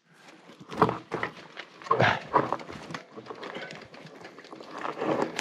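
Irregular knocks, rattles and rustling from a loaded fatbike moving over rough forest ground.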